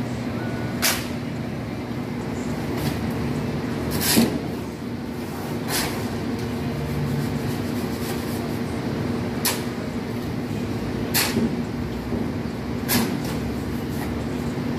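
Masons' metal tools knocking and scraping on mortar and concrete, about six sharp irregular knocks with the loudest about four seconds in, over the steady hum of an engine running.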